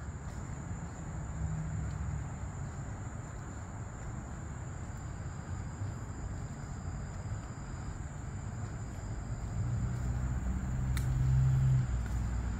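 Insects giving a steady high-pitched drone, over a low outdoor rumble that grows louder near the end.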